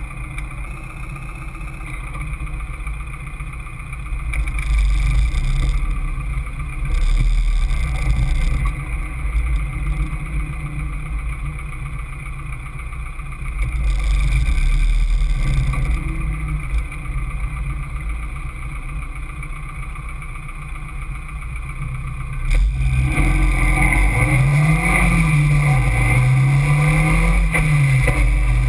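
Caterham Seven's engine heard from its open cockpit, pulling hard and easing off in turns as the car laps the track. About two-thirds of the way in the throttle opens fully and the engine gets suddenly louder, its pitch climbing and dropping several times.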